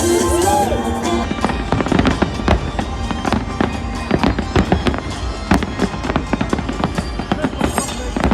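Fireworks display: many bangs and crackles in quick, dense succession, with music playing underneath.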